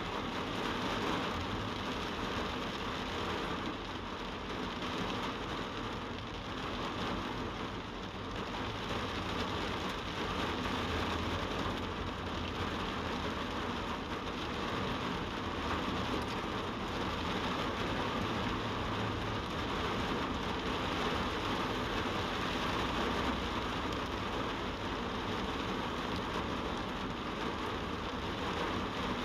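Steady rain falling on a vehicle's windshield and roof, heard from inside the cab, over a low steady rumble.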